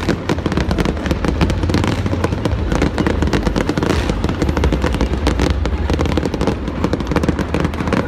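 Fireworks exploding in a rapid, continuous barrage of cracks and bangs over a steady low rumble.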